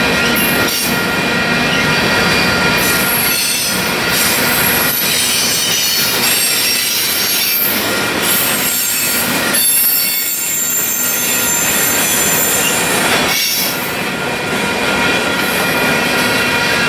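Freight cars of a passing train rolling by, their wheels squealing in steady high-pitched tones over a continuous rumble and clatter of wheels on rail.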